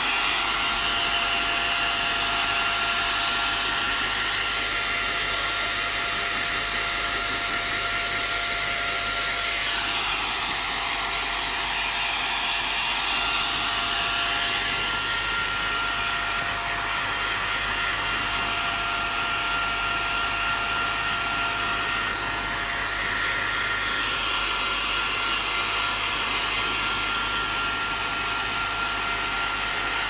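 Hand-held hair dryer running steadily as it blows on a wet shih tzu's coat: a continuous rush of air with a steady whine in it. The sound shifts a few times, around ten, seventeen and twenty-two seconds in.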